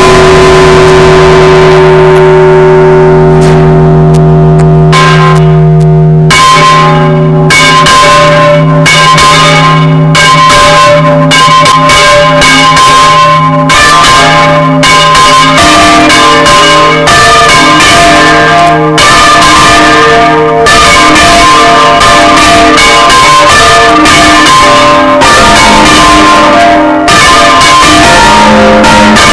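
Church bells rung by rope from inside the bell tower, very loud. It opens with one stroke of the great bell ringing out and slowly dying away. From about six seconds in, the other bells join in a repique: many bells struck in quick succession, their ringing tones piling up.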